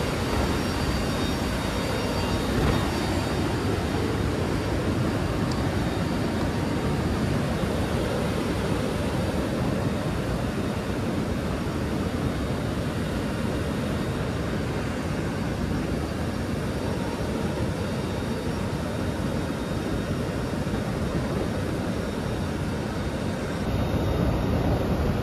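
Steady rush of airflow and turboprop engine noise inside a C-130J's cargo hold with the rear ramp open in flight, with a few faint steady engine tones over it. The noise gets a little louder near the end.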